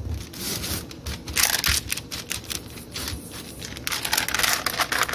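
Parchment paper crinkling and rustling in irregular bursts as a cup is pressed and twisted down through chilled cookie dough lying on it.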